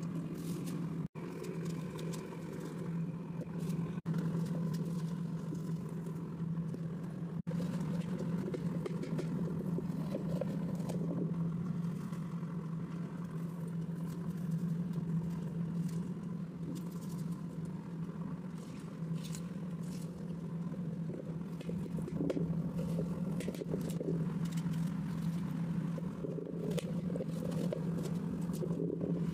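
A steady low hum, with faint scraping and clicks of a knife cutting watermelon flesh away from the rind.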